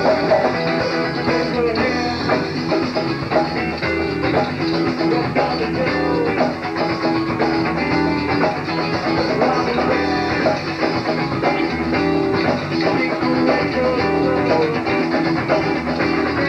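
Southern rock band recording, guitar-led, playing continuously.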